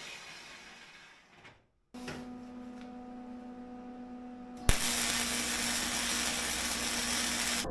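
Power tools working steel in short edited clips: a quieter motor hum, then after a sharp click about halfway through, a louder harsh hiss of cutting or grinding.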